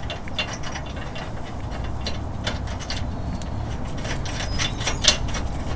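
Small irregular metallic clicks and scrapes of a flange nut being spun by hand down a carriage bolt onto a steel cross member, with a few sharper ticks. A steady low hum sits underneath.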